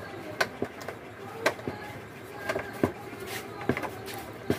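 Sharp plastic clicks and snaps as the plastic frame and clips of an LED TV's backlight assembly are pressed into place by hand: about eight irregular clicks.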